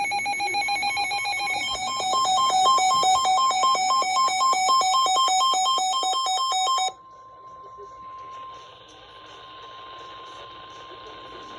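Weather-radio alert tones: a loud electronic beeping that switches between two pitches about four times a second, cutting off about seven seconds in. Under it is the steady tone near 1 kHz of the NOAA Weather Radio warning alarm, which goes on fainter over static.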